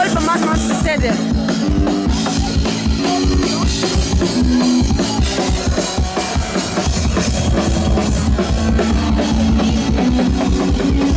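Live instrumental music: an acoustic drum kit playing a dense, busy beat under held synthesizer notes that step between pitches every second or so.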